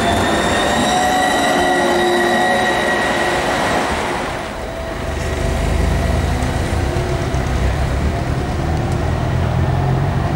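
AnsaldoBreda Sirio tram passing close by with a steady high whine. About four and a half seconds in, this gives way to a low rumble of road traffic with the tram further off.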